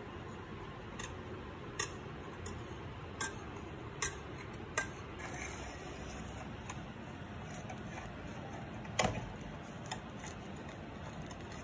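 A knife blade run around the edges of a sponge cake in a metal baking tray, clicking against the tray's rim: light clicks about once a second at first, then a louder click about nine seconds in.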